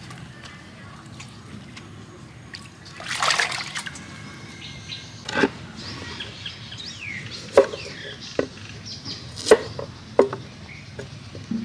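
A large kitchen knife chopping a cucumber on a wooden cutting board: about five sharp knocks a second or so apart in the second half. Earlier, about three seconds in, a loud rustle of leafy greens being handled.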